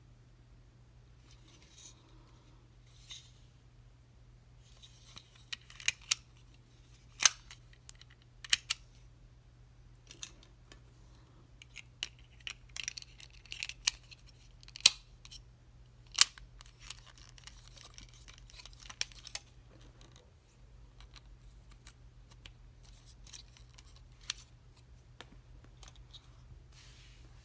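Plastic parts of a Transformers Kingdom Voyager-class Blaster action figure being handled and transformed: a scattered run of sharp clicks and snaps as pieces lock into place, with plastic scraping on plastic between them. The handling is busiest in the middle and dies down to a few light clicks near the end.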